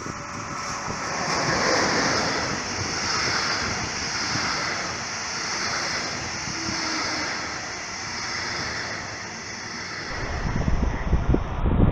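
Electric locomotive-hauled double-deck regional train passing close by: a steady rush of wheels on rails with a hissing edge that swells as the locomotive comes past and fades as the last coach goes, then wind buffeting the microphone near the end.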